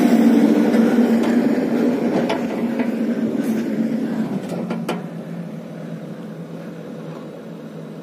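Case backhoe loader's diesel engine running steadily close by, growing gradually fainter, with a few sharp clicks in the middle.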